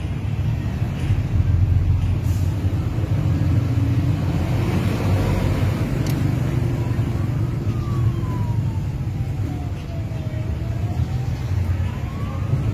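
Steady road-traffic rumble. About seven seconds in, a siren starts wailing, rising and falling slowly in pitch.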